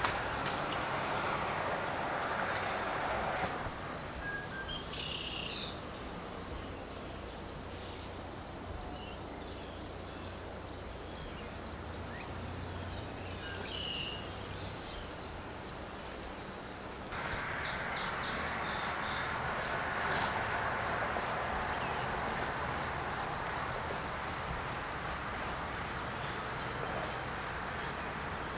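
Insects chirping in a regular rhythm, about three chirps a second, faint at first and much louder from about two-thirds of the way in, over a steady background hiss.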